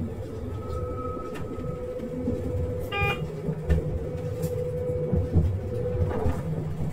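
Diesel regional train running, heard from on board: a steady low rumble under a held hum, with a short electronic beep about three seconds in.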